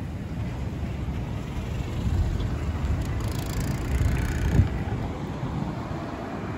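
A small van driving past close by, its tyre and engine noise swelling and fading over a couple of seconds in the middle, with a short thump as it goes by. A steady low rumble of wind on the microphone runs underneath.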